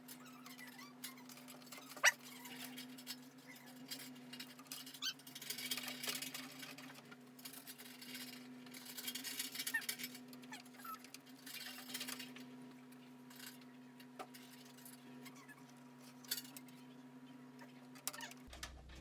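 Light clicks, taps and rustling of hands handling computer parts, over a steady low hum.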